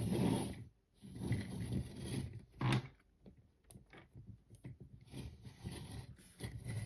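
Hard plastic parts of an Optimus Prime toy figure being handled, scraping and clicking as pieces are fitted together, with a sharper click about two and a half seconds in.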